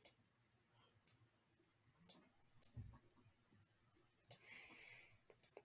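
Computer mouse clicking, about seven short sharp clicks at uneven spacing, faint against a quiet room.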